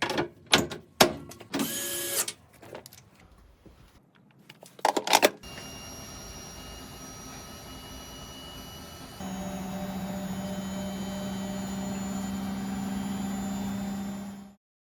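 Bosch Avantixx 6 washing machine: a few clicks and a short beep, then a steady motor hum that gets louder about nine seconds in and cuts off suddenly.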